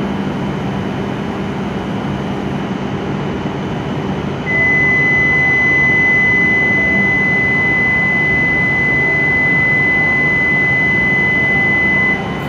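Station departure buzzer sounding for a stopped W7-series Shinkansen: one steady high electronic tone that starts about four and a half seconds in, holds for nearly eight seconds and cuts off sharply. Underneath is the continuous hum of the idling train and the station.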